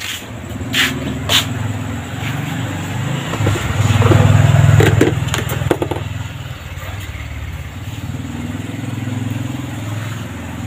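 A motorcycle engine running close by, growing louder about four seconds in as it passes and then easing off to a steady hum. A couple of sharp clicks sound near the start.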